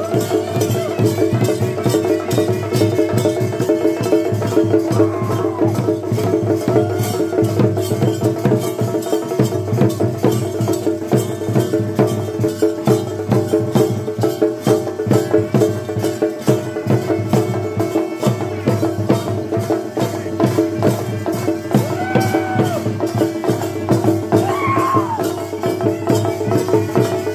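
Traditional ritual music for a kola dance: fast, continuous drumming over a steady held tone, with a few short sliding notes higher up.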